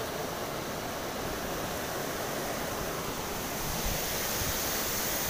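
Steady rushing noise of wind on the microphone, a little louder from about four seconds in.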